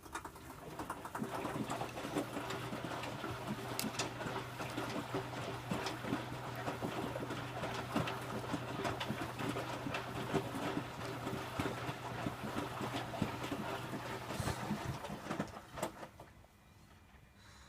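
Electrolux W455H commercial washing machine's drum turning during the wash phase: a steady motor hum with the wet load churning and clattering inside. It stops about fifteen seconds in.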